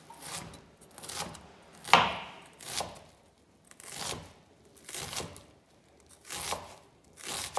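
Chef's knife finely dicing a white onion on a wooden chopping board: separate, irregular strokes of the blade through the onion onto the board, about one or two a second, the loudest about two seconds in.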